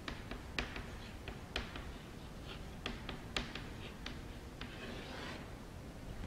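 Chalk writing on a chalkboard: a series of sharp taps and short scratches as letters are written, then a longer scraping stroke near the end as the word is underlined.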